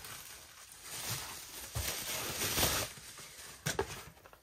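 A cardboard box and its packaging being handled and slid across a tabletop: rustling that swells and fades, then a couple of light knocks near the end.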